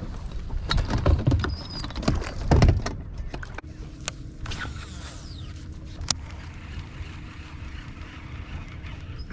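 Irregular knocks, clicks and rustles of rod and gear handling in a fishing boat, then a steady low hum from about three and a half seconds in, with a few sharp clicks.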